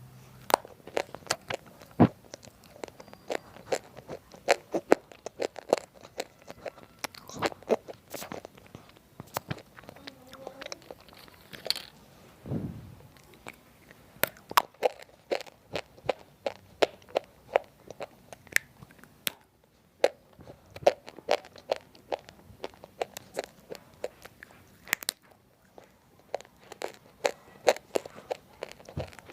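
Crunching and chewing of roasted multani mitti (fuller's earth clay) chips: a long run of sharp, dry bites and crunches, with two short pauses in the second half.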